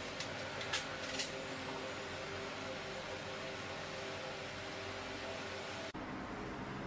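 Dental equipment running: a steady mechanical hum with a thin, wavering high whine, and a few sharp clicks about a second in. The sound changes abruptly near the end.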